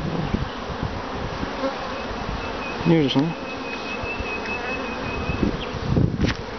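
Honeybees buzzing in a dense, steady hum around a brood frame lifted from an open hive. A brief louder sound comes about halfway, and a few light knocks near the end as the wooden frame is lowered back into the hive.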